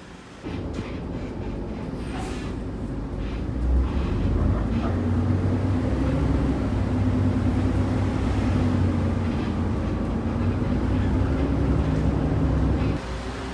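A vehicle running: a steady low rumble with a hum, cutting in abruptly about half a second in and stopping suddenly near the end.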